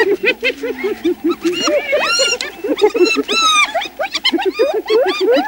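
Spotted hyena giggling: a fast, even run of short high yelping notes, about six a second, with longer high calls that rise and fall laid over it.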